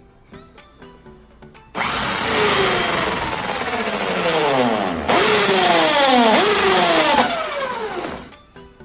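Black & Decker hand drill spinning a 32 mm hole saw into the scooter's black plastic panel, starting about two seconds in and stopping near the end. Its whine drops in pitch over and over as the saw cuts, with a fresh burst about five seconds in. Background music plays under it at the start and end.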